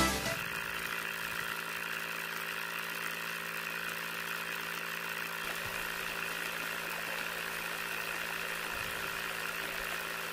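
Small DC mini water pump motor running with a steady hum, while water trickles from its outlet pipe into a basin.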